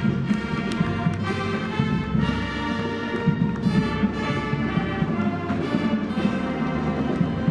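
High school marching band playing: brass carrying the tune over a steady drum-line beat.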